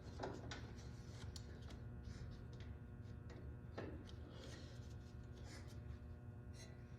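Faint scattered clicks and scrapes of a small light switch and its metal parts being handled and pushed up into a garden tractor's dash panel, over a low steady hum.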